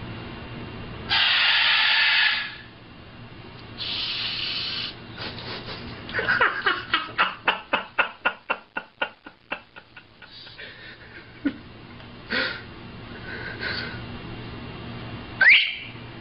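Macaws calling: two breathy, hiss-like rasps, then a fast run of about twenty short laugh-like pulses, about five a second, over four seconds. A few short squawks follow, and one quick rising whistle comes near the end.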